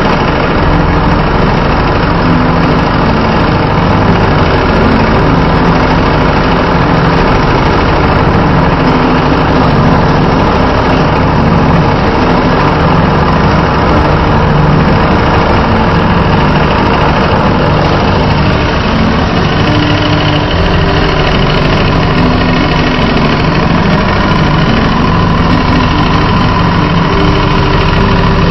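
Heavy-duty double-needle industrial sewing machine running steadily, stitching a seam.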